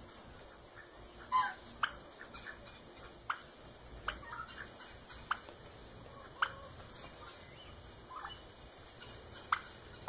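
Domestic turkeys calling: about eight short, sharp calls at uneven spacing, one a little longer about a second and a half in.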